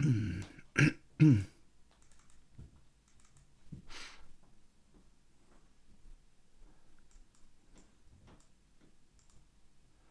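Brief wordless vocal sounds from a man at a computer in the first second and a half, then faint scattered computer keyboard and mouse clicks, with a short breathy noise about four seconds in.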